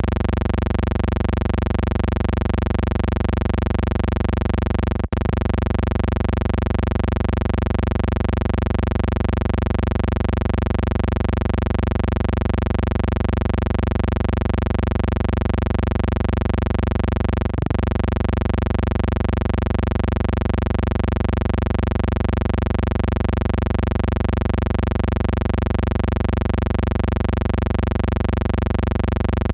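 A steady, unchanging low hum made of many stacked tones, the kind of noise laid on the soundtrack of a silent film transfer. It cuts out very briefly twice, about five seconds in and again near eighteen seconds.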